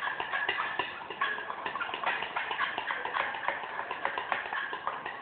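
Rapid, irregular clicking and tapping of a stirring utensil against a pot as a thickening slime mixture of detergent and foot powder is stirred, several clicks a second.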